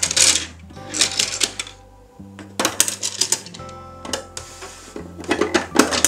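Bursts of rapid plastic clicking and rattling as the roll-up doors of a toy bus garage are pushed open by hand, about four times, over background music.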